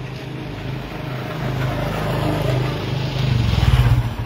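A motorbike passing close by on the road, its engine growing louder, peaking near the end and then dropping away.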